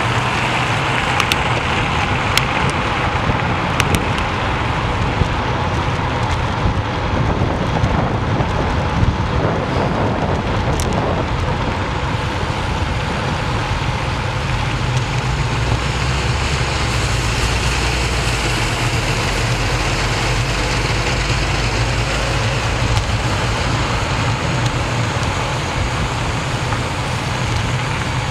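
Steady rush of wind over a bike-mounted action camera's microphone while cycling at about 30–35 km/h, with city road traffic rumbling beneath. A few sharp clicks sound in the first dozen seconds.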